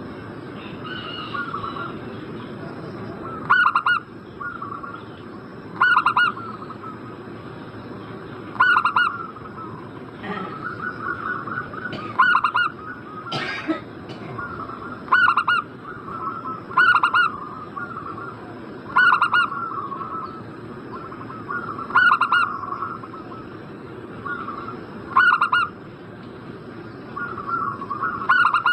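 Zebra dove (perkutut) cooing: a loud, short coo comes every two to three seconds, about ten in all, with softer rapid cooing notes between them. This is a lure recording of the kind played to provoke a caged dove into answering.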